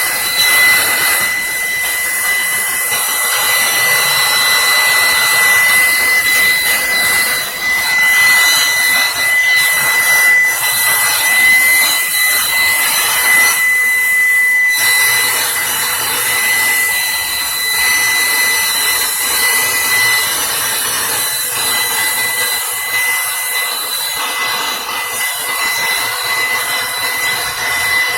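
A small electric blower or air tool running steadily during cleaning of a mixing console: a rushing hiss with a constant high whine.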